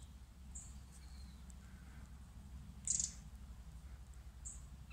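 Faint short high chirps of small birds, three of them, the clearest about three seconds in, over a low steady rumble.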